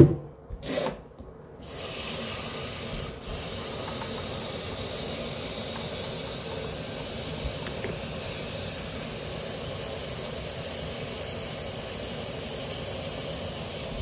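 Water running from a kitchen faucet into a plastic electric kettle, filling it. It is a steady hiss that starts about two seconds in.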